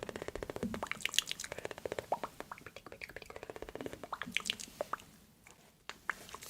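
Close-miked ASMR mouth sounds: wet clicking and smacking, coming in fast runs of many clicks a second at first, then thinning to scattered single clicks about four seconds in.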